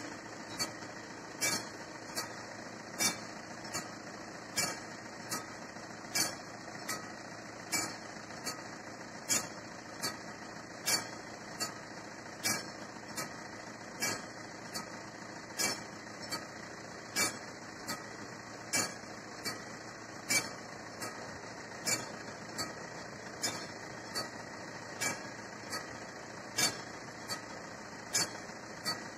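Level-crossing warning bell of the classic type on an AŽD 71 crossing, ringing in steady regular strokes, a little under two a second, with a louder stroke about every second and a half. It is the warning that a train is approaching and the barriers are coming down.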